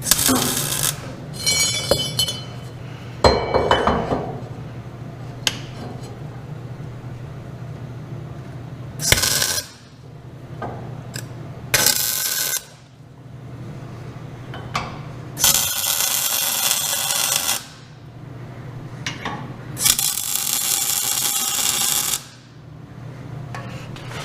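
Welder laying tack welds on steel brackets: a few short crackling bursts, then two longer crackling beads of about two seconds each in the second half. Metal clinks and a clank sound in between, over a steady low hum.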